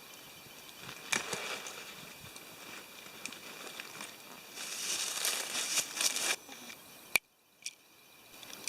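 Rustling and scattered light clicks of hammock gear being handled during setup, with a longer stretch of rustling about five seconds in, over a faint steady insect hum. The sound cuts out abruptly after a sharp click about seven seconds in.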